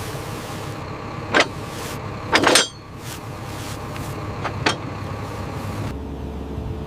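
An engine running steadily, with a few short sharp metallic clanks: one about a second and a half in, a louder one about two and a half seconds in, and two close together a little before five seconds. Near the end the engine's note drops lower.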